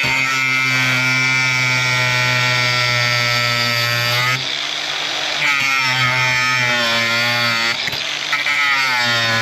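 Cordless 18-volt angle grinder with a grinding disc running in three bursts, one long and two shorter, grinding a rivet head flush on steel. Its whine sags slightly in pitch during each burst.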